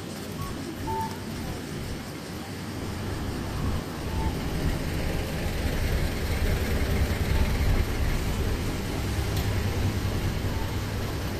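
City street traffic: passing vehicles with a low rumble that swells through the middle and eases off, with a few short faint tones near the start.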